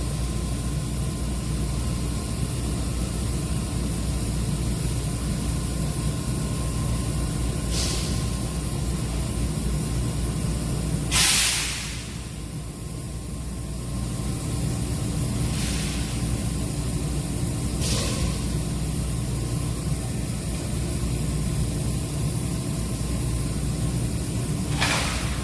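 Hydraulic four-roll plate bending machine running with a steady low hum, with short hisses about five times, the loudest and longest about eleven seconds in.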